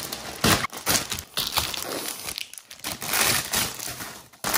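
Plastic mailer bag and clear plastic item bags crinkling and rustling in irregular bursts as a parcel is unpacked by hand.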